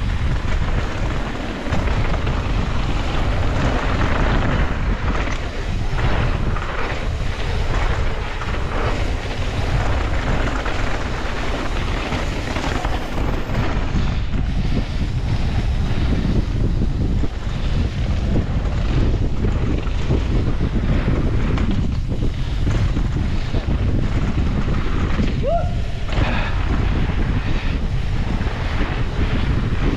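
Wind buffeting the microphone of a mountain bike descending a trail at speed, over a steady low rumble from the ride. Near the end there is one brief high squeal that rises and falls in pitch.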